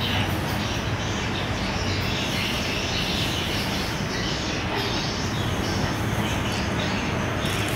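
Steady street-traffic din, an even low rumble with hiss from passing vehicles.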